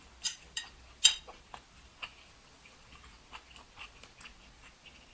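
Close-miked chewing: wet mouth clicks and smacks, three sharp ones in the first second or so, then lighter irregular ones.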